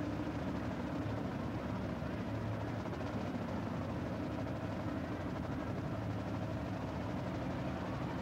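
Marching band drumline (snare drums, tenor and bass drums) playing a fast, unbroken drum pattern at a steady level.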